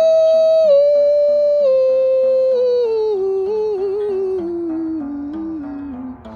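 A single voice holds one long wordless note, then steps down in pitch in several stages, with a little wavering in the middle, over a plucked guitar accompaniment. It grows somewhat quieter near the end.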